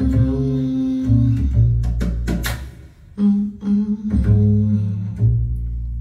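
Recorded music played back over hi-fi loudspeakers, with deep held bass notes and a few sharp percussive hits, about two and two and a half seconds in and again at the end.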